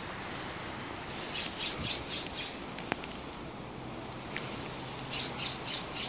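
An animal's harsh, rapid squawking calls in two runs of four or five quick notes, the first about a second in and the second near the end, over a steady outdoor hiss.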